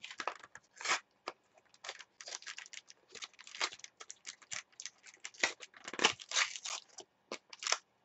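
Foil trading-card packs crinkling and tearing open, and cards being handled: a quick run of short, dry rustles and crackles.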